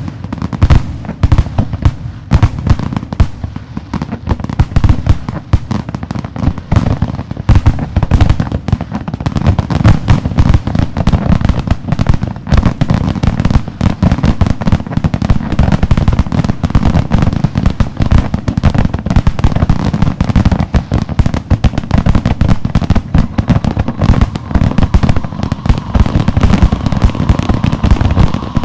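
Fireworks grand finale: a dense, continuous barrage of aerial shell bursts and crackling, so many bangs that they overlap with no gaps. The bangs grow thicker about a third of the way in.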